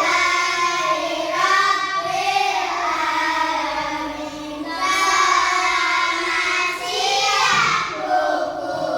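Children singing a song together, in unison, with long held notes.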